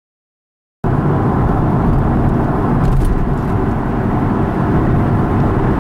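Steady road and engine rumble heard inside the cabin of a moving C5 Corvette on run-flat tyres, with its V8 running, cutting in abruptly about a second in; the cabin is fitted with a sound deadener kit, and the meter reads about 79 dB. A few faint ticks sound near the middle as the car rolls over a bump.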